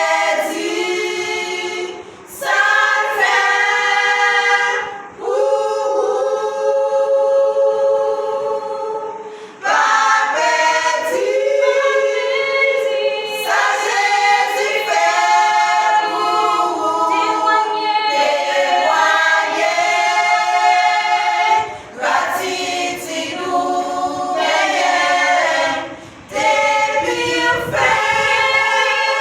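A gospel choir singing a cappella, several voices in harmony, in phrases broken by short breaths about every few seconds.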